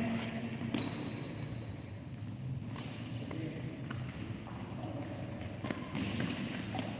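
Scattered light taps and knocks of badminton play on an indoor court, a few sharp ones spread through, over a steady low hum.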